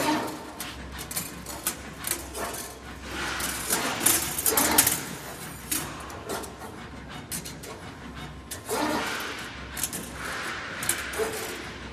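Automatic steel-wire bending machine running its forming cycle: the wire feeding through the guide and the bending head turning, heard as several spells of mechanical whirring and clattering with sharp clicks, a few seconds apart.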